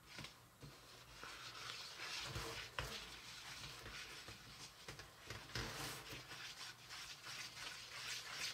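Small rubber-tipped spatula stirring and scraping a thick, barely moistened icing powder around a plastic bowl, in soft irregular scratchy strokes with a light click about three seconds in. The powder is not yet taking up the little water and mixes stiffly.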